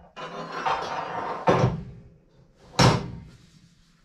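A paper towel scraping along a stainless steel milk-tank measuring rod, with a sharp knock about one and a half seconds in. A louder ringing metallic clank follows near three seconds as the rod is set down into the bulk tank to gauge the milk level.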